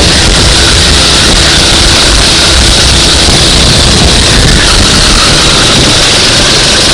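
Go-kart engine running steadily at speed, very loud and nearly constant, with a dense noisy roar that hides most of the engine tone.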